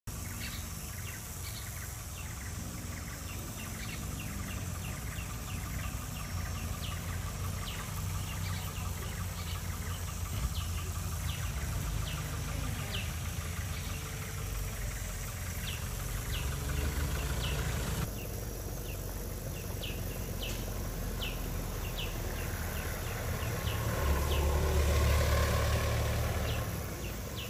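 Outdoor ambience: a steady low rumble under a run of short high chirps repeating every fraction of a second, with the rumble swelling louder near the end.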